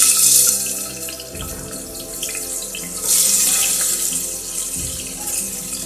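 Diced watermelon rind sizzling as it drops into hot oil with tempered spices in a pressure cooker. The sizzle grows louder again about three seconds in as more pieces go in.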